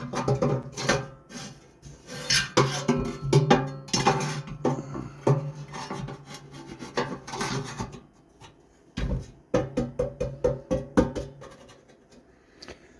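Irregular metal clinks, knocks and scrapes as the burner assembly of a Suburban NT-16S furnace is worked back into its sheet-metal housing, with a short lull partway through.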